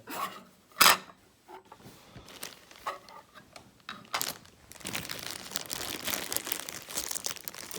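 Plastic packaging being handled and unwrapped: a few sharp clicks, the loudest a little under a second in, then steady crinkling from about five seconds in.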